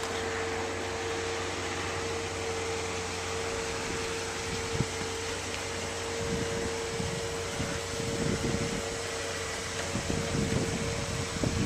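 A steady mechanical hum with a faint steady tone in it, and irregular low thumps and knocks from about halfway through.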